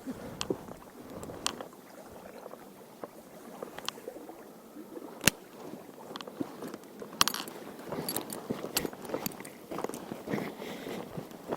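Handling noises: scattered sharp clicks and knocks with light rustling, as gear and a catch bag are handled. The loudest click comes about halfway through, and a cluster of clicks and rustles follows a couple of seconds later.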